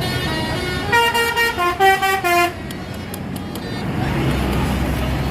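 A bus's Basuri telolet musical horn plays a short tune of stepped notes for about a second and a half, starting about a second in. Near the end a bus engine's low rumble grows louder.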